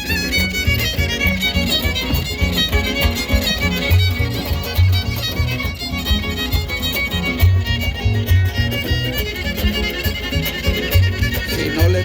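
Son huasteco played live by a huasteco trio: a fiddle carries a lively, ornamented melody over rhythmically strummed jarana and huapanguera, with the huapanguera's bass notes pulsing underneath.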